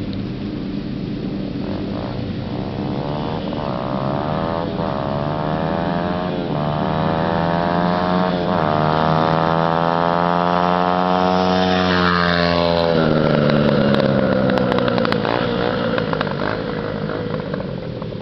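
2006 Honda CRF100F dirt bike's small four-stroke single-cylinder engine accelerating toward the listener, climbing in pitch and dropping back with each of several upshifts. It grows louder, passes about 13 seconds in with a sudden drop in pitch, then fades away.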